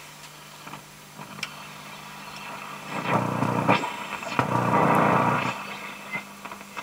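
AWA Radiola 467MA valve radio warming up after switch-on: a steady low hum, then about three seconds in a loud burst of rough static from its speaker as the receiver comes alive, with a few sharp clicks.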